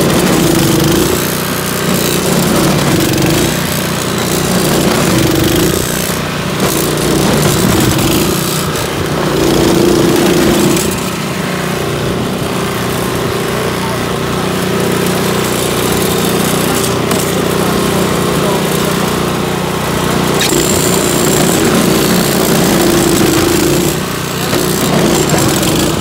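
Toro 621 QZR single-stage snow blower running steadily, its small four-stroke engine working under load as the auger paddles churn and throw snow.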